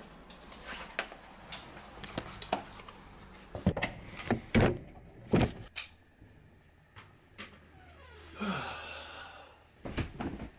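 Knocks, taps and footsteps of someone moving about a room on a wooden floor and handling things, the loudest knocks about halfway through. Near the end a rustle and a soft thud as a person drops onto a bed.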